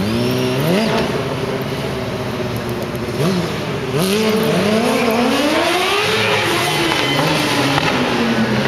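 Motorcycle engines revving hard again and again, the pitch sweeping up and dropping back in quick succession, loud and showy.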